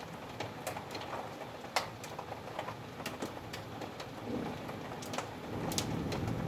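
Hailstones hitting a windowsill in scattered, irregular sharp ticks over the steady hiss of rain, with a low rumble building in the last couple of seconds.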